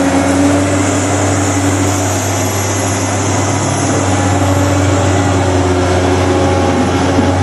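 Komatsu hydraulic excavator's diesel engine running steadily as the machine swings its boom.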